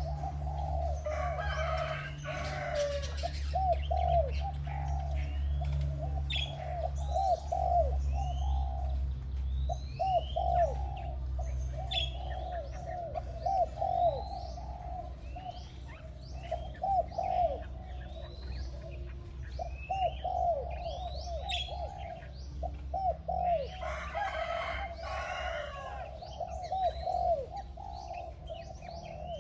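Spotted dove cooing over and over in short phrases of low, arched notes, a decoy bird in full voice. Small birds chirp higher up throughout, and twice there is a short burst of rustling noise.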